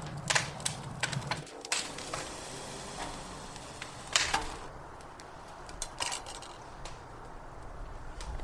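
Irregular sharp clicks and light clattering knocks, the loudest about four seconds in, over a low background hum that stops about a second and a half in.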